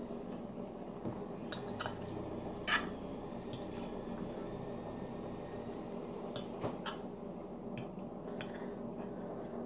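A fork tapping and scraping on a plate while cutting French toast: scattered sharp clinks, the loudest about three seconds in, over a steady background hum.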